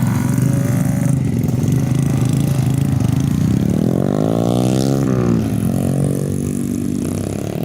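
Motorcycle engine running steadily, revved up about three and a half seconds in and dropping back to a lower speed a couple of seconds later.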